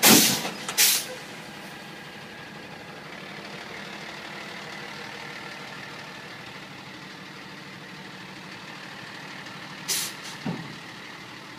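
Dump truck running steadily at idle while its bed is tipped, with two loud blasts of air hiss in the first second and another short hiss near the end, followed by a brief falling squeal.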